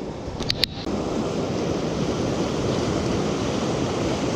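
Fast river rapids rushing steadily, with two sharp clicks about half a second in.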